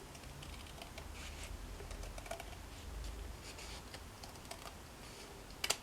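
A folded paper template being trimmed: faint, scattered small cutting clicks and paper rustle, with one sharper click near the end.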